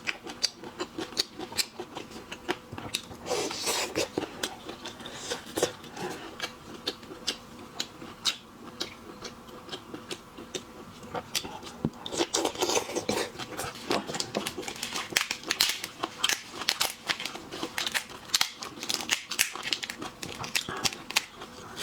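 Shells of steamed prawns being cracked, cut and peeled apart: a fast, uneven run of sharp clicks and crackles, with two stretches of heavier crunching.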